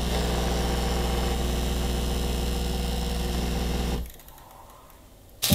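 Capsule espresso machine's pump buzzing steadily while it brews a shot into the cup, cutting off abruptly about four seconds in.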